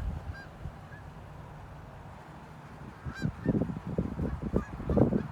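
Canada geese honking: a few scattered calls at first, then a quick run of honks from about three seconds in, loudest near the end.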